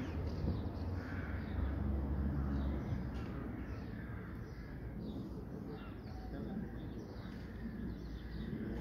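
Outdoor ambience with birds calling, harsh caw-like calls repeating every second or so, over a low rumble that eases off about three seconds in.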